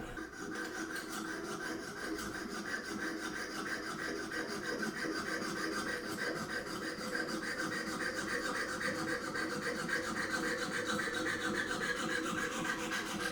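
A hand saw cutting through hard germanium silver ring stock in fast, even back-and-forth strokes.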